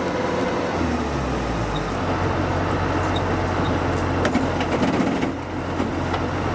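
Kubota DC105 combine harvester's diesel engine running steadily as the machine travels, a low drone whose pitch steps up slightly about two seconds in.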